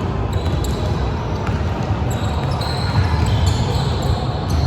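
A basketball being bounced on a hardwood court during a game, over a steady low rumble of gym noise, with scattered knocks and brief high squeaks.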